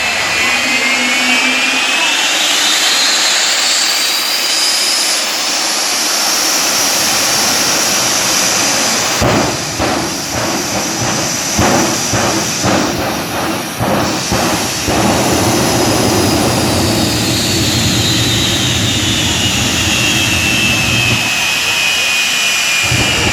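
Jet dragster's turbine engine spooling up, its whine rising in pitch over the first few seconds and then holding high. A run of sharp pops comes between about nine and fifteen seconds in, and the whine then winds back down in pitch.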